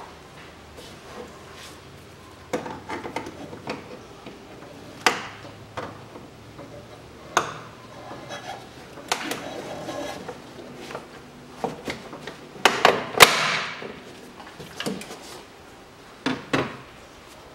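Plastic air intake ducts and their clamps being worked loose and pulled off an engine with a hand tool: scattered clicks, knocks and plastic rattles, busiest a little past the middle, where a longer scraping rush comes with a cluster of knocks.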